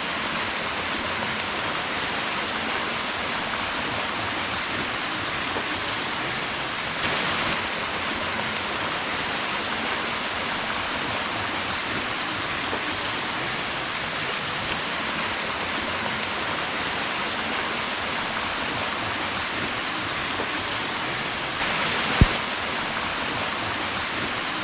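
Steady rushing of river water mixed with falling rain, an even hiss that holds level throughout, with one sharp knock about 22 seconds in.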